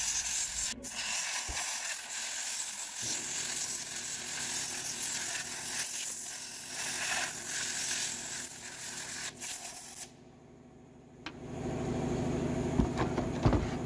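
Compressed-air blow gun hissing as it blasts sawdust out from around a chainsaw carburetor. The air cuts off about ten seconds in. Rag rustling and a couple of sharp knocks follow as the saw is handled.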